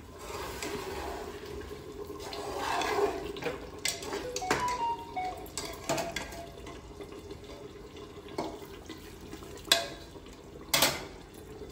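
Just-boiled water poured from a saucepan into an open aluminium pressure cooker of mutton fried dry in ghee, splashing in as the water for the gravy. A slotted spatula stirs and knocks against the cooker several times, the loudest knock near the end.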